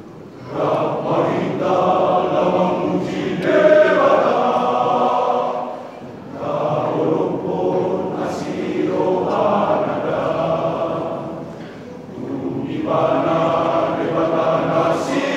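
A men's choir singing in parts, starting about half a second in, in three phrases with brief pauses between them.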